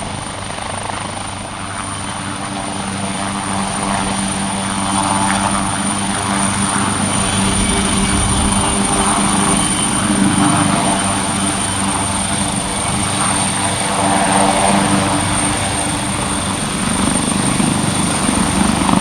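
Leonardo AW139 twin-turboshaft helicopter in flight: rotor and engine noise with a steady high whine, growing steadily louder.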